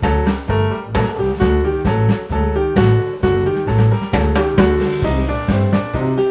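Background music: piano or keyboard tune with bass and drums at a steady beat.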